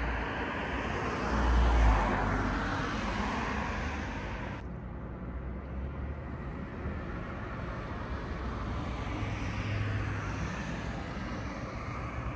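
Outdoor street ambience: a passing car swells and fades about two seconds in, followed by a steady traffic rumble.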